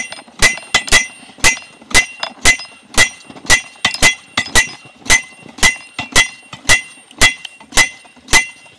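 Steel slide hammer on an All-Tie anchor post striking over and over, a sharp ringing metal clang about twice a second, driving the anchor's cross tip into the ground.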